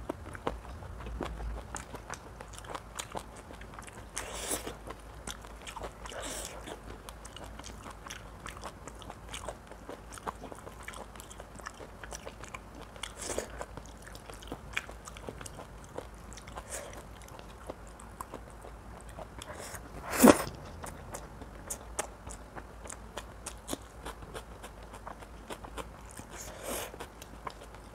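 Close-miked eating of mutton curry: chewing and biting with many small mouth clicks and crunches, and one louder, longer sound about two-thirds of the way through.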